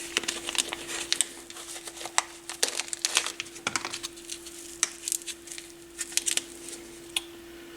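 Irregular crinkling and small clicks as the replacement battery and its packaging are handled, over a faint steady hum.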